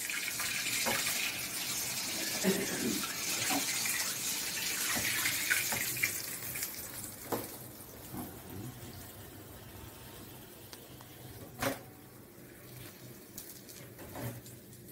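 Bread cutlets deep-frying in hot oil in an iron kadai, a steady sizzle that is strong for the first six or seven seconds and then dies down as the cutlets are lifted out with a slotted skimmer. A few sharp knocks of the skimmer against the pan come in the second half.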